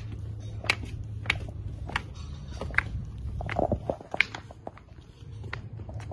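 Footsteps at a walking pace: a sharp click about every two-thirds of a second, over a low steady rumble.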